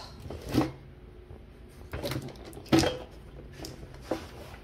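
Handling noise as an orange foam mat is laid and pressed onto a wooden jigsaw puzzle cutting die: about four short knocks and scuffs, the loudest a little after midway.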